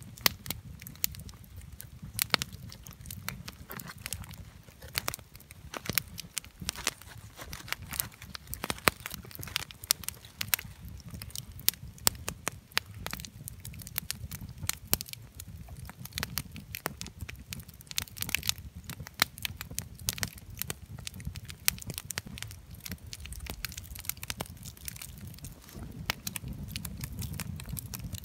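Wood campfire crackling with frequent sharp pops and snaps over a low steady rumble, mixed with the rustle and crinkle of a plastic bag being handled.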